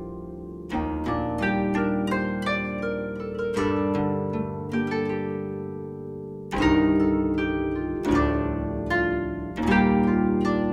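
Background music of plucked, harp-like string notes fading after each pluck, over held low notes, with louder new chords coming in about a second in, past the middle, and near the end.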